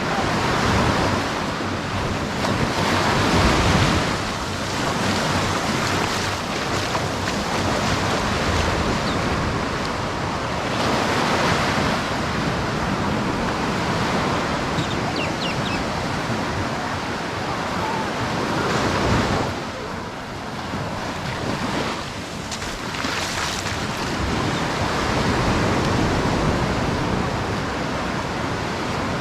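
Ocean surf breaking on a sandy beach, a steady wash of noise that swells with each wave every several seconds.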